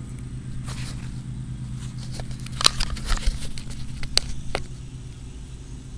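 A steady low hum with a few sharp clicks or taps over it, the loudest about two and a half and four seconds in.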